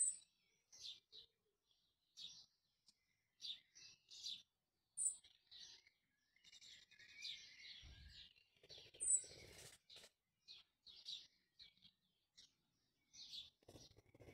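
Small birds chirping faintly in the background, a steady run of short separate chirps with a few higher, sharper notes. A soft low thump and a single click come around the middle.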